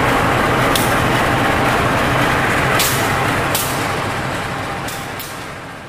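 CC 203 diesel-electric locomotive engine running steadily, with a low hum and a broad rush of engine noise, broken by a few short high hisses. The sound fades out near the end.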